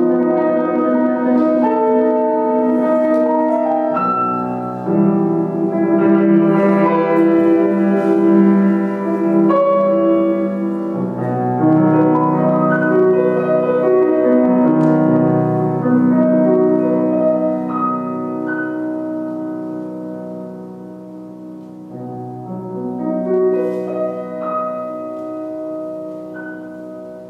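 Grand piano played solo: slow chromatic classical music in held, ringing chords. It grows softer in the last third and dies away near the end.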